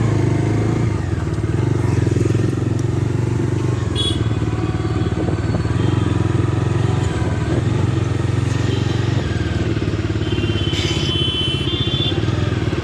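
Bajaj Dominar 250 motorcycle's single-cylinder engine running steadily on the move. A high horn-like tone sounds briefly about four seconds in and again for over a second near the end.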